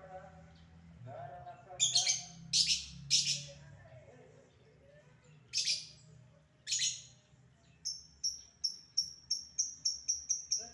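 Caged lovebird giving a few harsh, shrill calls, then about eight seconds in breaking into a fast even run of short high chirps, the start of its ngekek chatter.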